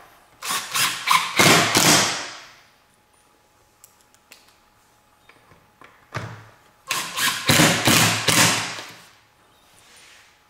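Cordless Makita 18V driver driving screws through the Kreg K5 jig's plastic side wing into a plywood base. There are two runs, one near the start and one about six seconds in. Each opens with a few short trigger bursts and ends in a longer spin as the screw seats.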